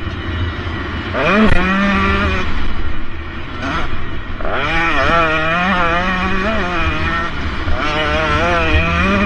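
Two-stroke motocross bike engine revving hard under throttle. The pitch climbs sharply about a second in, again near the middle and again near the end, and wavers between the climbs.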